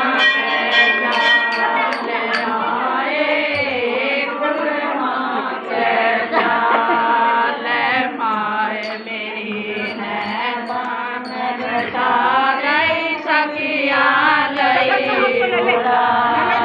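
A group of women singing a Hindu devotional bhajan together, one long continuous sung line, with hand claps keeping time.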